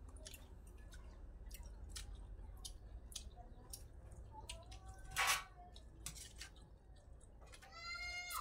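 Close-up eating sounds from hand-eating a mackerel curry: wet chewing and frequent small lip-smacking clicks, with one louder breathy noise about five seconds in. A short high rising-and-falling cry sounds near the end.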